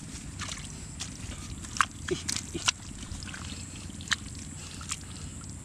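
Bare hands digging and squelching in wet mud, with a few short sharp wet splats and smacks.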